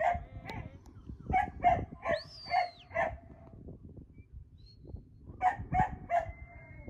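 A dog barking in short, quick runs of two or three barks, three times over.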